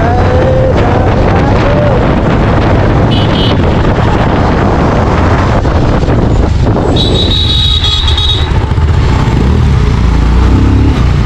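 Motorcycle riding along, engine running steadily under heavy wind noise on the microphone. Two brief high tones cut through, about three seconds in and again around seven seconds in.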